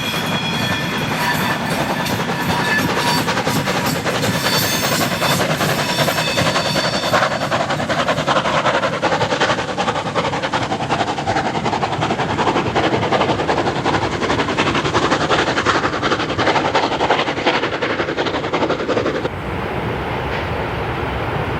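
Heritage train hauled by steam locomotive BR 98 886 running past, its wheels clattering on the rails. High wheel squeal sounds over it for the first several seconds. The sound changes suddenly near the end.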